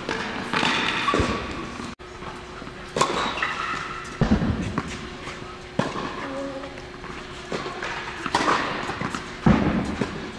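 Tennis balls struck by a racket and bouncing on an indoor court, about half a dozen separate sharp hits and thumps echoing in the hall. A steady hum runs underneath from about two seconds in, and faint voices are heard.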